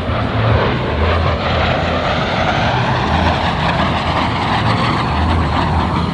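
Canadair CT-133 Silver Star jet trainer passing overhead, its Rolls-Royce Nene 10 turbojet giving a steady rushing jet noise that swells a little in the middle.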